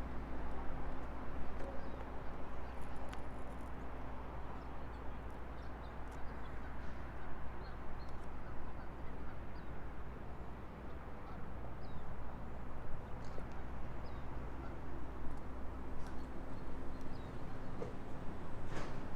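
Steady outdoor background noise with a low hum, dotted with faint short high chirps; a single sharp click near the end.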